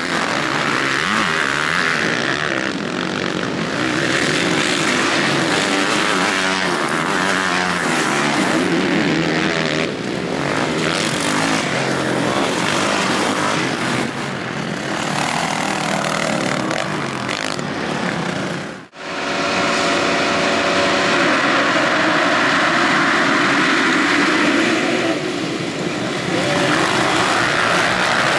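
Motocross dirt-bike engines revving hard as bikes ride around the track. About two-thirds of the way in the sound cuts out for a moment, then a pack of bikes revs together.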